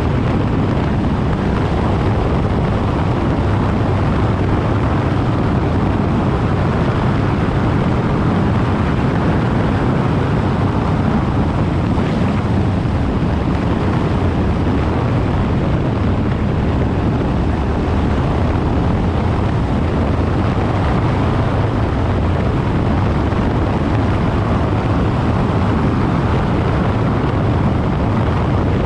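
Yamaha Ténéré 700's 689 cc parallel-twin engine running steadily while the bike is ridden, mixed with wind noise on the microphone.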